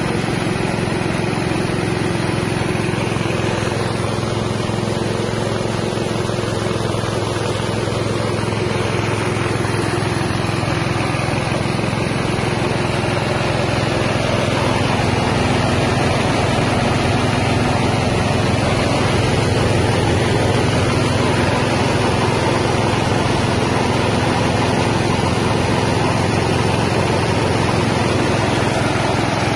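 Small engine running steadily under load, driving a mini rice mill that is milling paddy straight into rice and bran.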